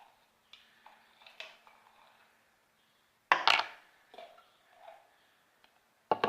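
Glue-and-borax slime being stirred in its container, the stirring utensil scraping and knocking against the sides, with a sharp knock about three seconds in and another near the end.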